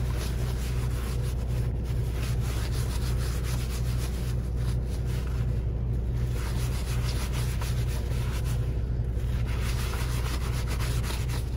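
A wad of paper towels rubbing back and forth over a plastic cutting board in repeated wiping strokes, over a steady low hum.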